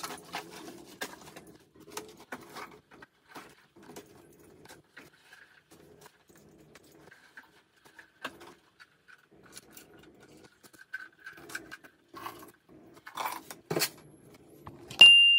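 Bags and clothes being handled and packed into a suitcase: irregular rustles, clicks and light knocks. A short, loud, high-pitched beep sounds near the end.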